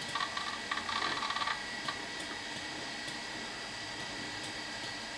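Macintosh LC 475 running: a steady faint computer hum with a thin high tone, and a soft mechanical whirring in the first second or so.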